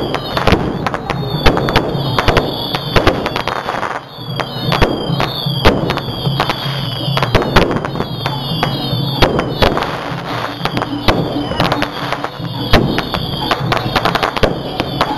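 Fireworks and rockets going off in quick succession: many sharp bangs and cracks, with repeated high whistling glides, over a loud continuous bed of sound.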